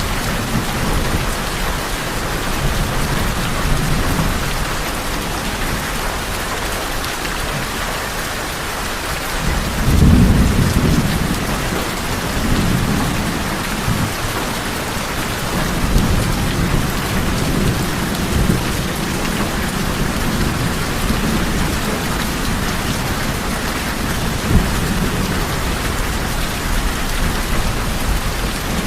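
Rain falling steadily on a tin roof, with thunder rumbling underneath; the loudest roll of thunder comes about a third of the way in.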